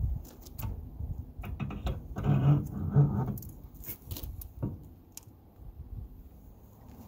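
Metal clinks and knocks as a new slotted brake rotor and its hub are handled and slid onto the truck's front spindle, with a louder scraping stretch about two to three seconds in.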